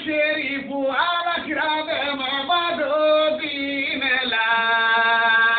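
A man's voice chanting a melody unaccompanied, with bending sung phrases and a long held note near the end.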